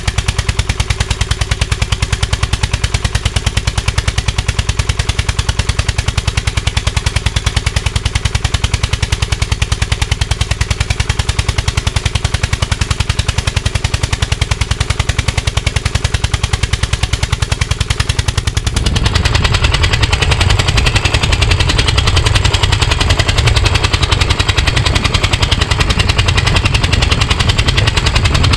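Lawn tractor's overhead-valve engine running at low speed, its exhaust a fast, sharp popping. About 19 s in it turns louder and heavier as it is heard right at the exhaust pipe, which glows red. The engine is running too rich and will not rev up, which the owner puts down to valve trouble in the cylinder head.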